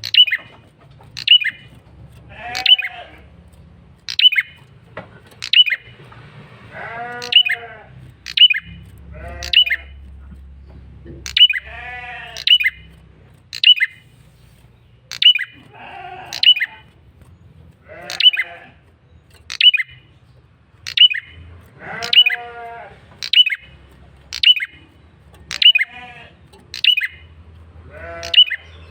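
Male prenjak kepala merah (red-headed prenjak) calling persistently: sharp, high, downward-slurred notes about once a second, with lower, nasal, buzzy calls every few seconds. It is a loud, insistent lure call of the kind used to draw in rival males.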